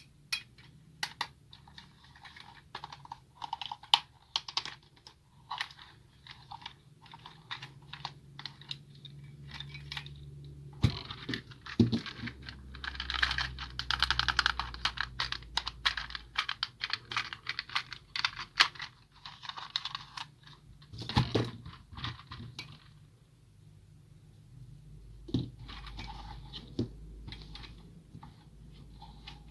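Rapid small clicks and taps with some crinkling, from the toy excavator and its packaging being handled, with a few louder knocks about 11 and 21 seconds in.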